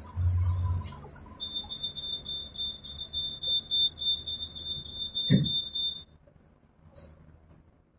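Door warning beeper of a KTM-28 (71-628-01) tram, a fast-pulsing high beep that sounds for about four and a half seconds and then stops. A low rumble is heard in the first second, and a single thump comes shortly before the beeping ends.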